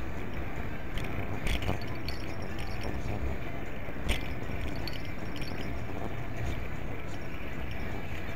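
Steady rolling and wind rumble of a bicycle riding along a paved path, picked up by an action camera mounted on the bike, with a few sharp rattling clicks from bumps, the loudest about four seconds in.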